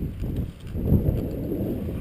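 Wind buffeting the microphone: an uneven low rumble that dips briefly about half a second in.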